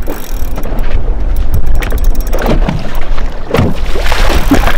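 Wind buffeting the microphone over water around a small boat, with irregular knocks and splashes.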